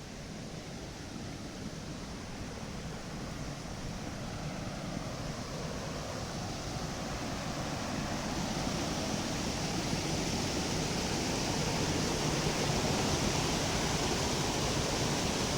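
Waterfall rushing: a steady, even sound of falling water that grows gradually louder.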